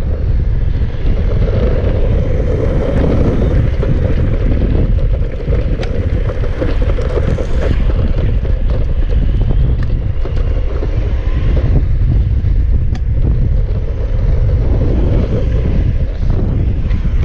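Wind buffeting the microphone of a moving action camera: a loud, steady low rumble and rush, with scattered small clicks and rattles.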